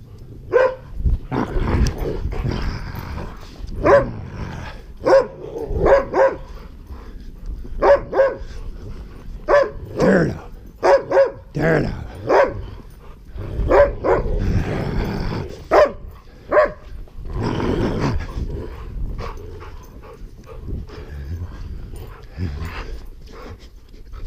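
Dogs barking in short, sharp barks, about twenty of them over the first sixteen seconds or so, with growling between them as they play rough in the snow. It quietens toward the end.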